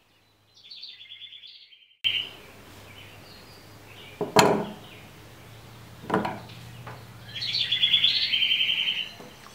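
Serrated knife blade dragging through a rubber toy lizard, giving a high, rapid chattering squeak in two spells of about a second and a half, one at the start and one near the end, with two sharp knocks in between.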